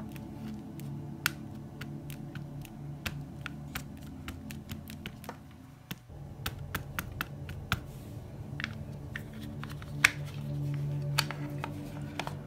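Ink pad tapped repeatedly onto a clear rubber-free stamp: a run of light, irregular plastic clicks, about two or three a second, with one louder tap near the end.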